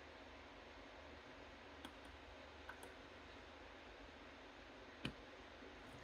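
Faint clicks of a dimple pick and tension wrench working the pins of a Master Lock 1145 dimple padlock: a few soft ticks about two seconds in and a sharper single click about five seconds in, over faint hiss.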